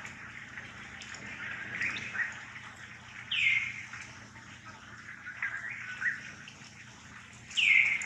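High-pitched animal calls: two louder calls, each sliding down in pitch for about half a second, about three seconds in and near the end, with fainter short chirps between them over a steady soft hiss.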